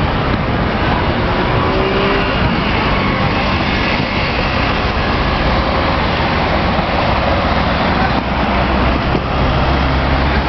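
Road traffic at a busy city intersection: a steady wash of car engines and tyre noise, with a deeper engine rumble building in the last few seconds.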